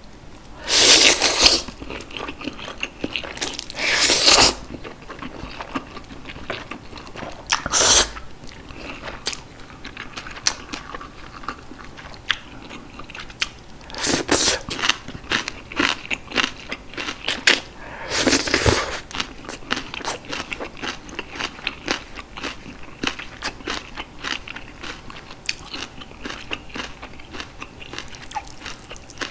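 Close-miked eating of Jjapaghetti noodles and green onion kimchi: five loud bites or slurps in the first two-thirds, with wet chewing clicks going on between and after them.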